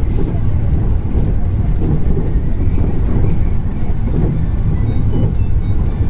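A steady, loud low rumble with no clear beat or pitch, and faint high ringing tones joining about four seconds in.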